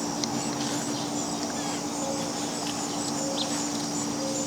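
Outdoor ambience of insects trilling steadily at a high pitch, with a few faint bird chirps and a steady low hum underneath.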